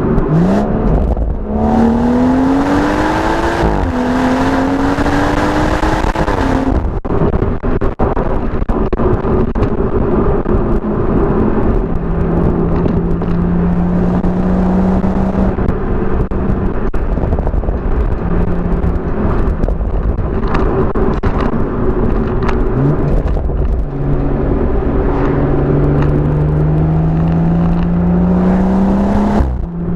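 BMW M140i's turbocharged 3.0-litre straight-six pulling hard through the gears. The pitch climbs, drops briefly at a shift about four seconds in, and climbs again with a loud rushing noise. After a drop about seven seconds in the engine settles to a steadier cruise, then revs up again in a long climb near the end.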